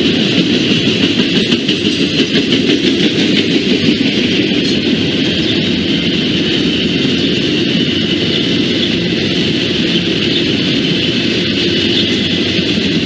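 A train passing close by: a steady, loud rumble of wheels on rail with a hiss higher up. Rapid faint clicks run through the first few seconds.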